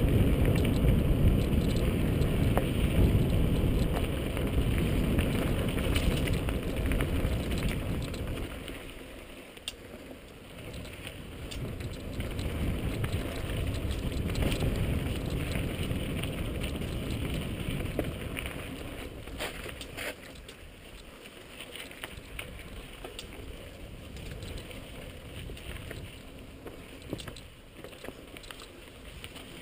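Wind rushing over a helmet-mounted camera's microphone with the rattle and tyre noise of a mountain bike rolling over dirt and rock. The rushing eases about eight seconds in, swells again, and fades after about eighteen seconds, leaving quieter riding noise with scattered clicks and knocks.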